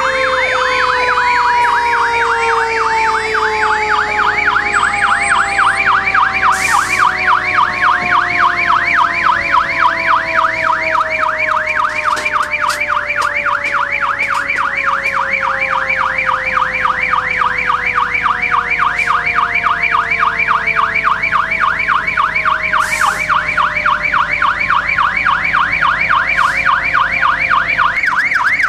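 Fire-engine sirens sounding together: an electronic siren on a fast yelp, over lower siren tones that slowly fall in pitch.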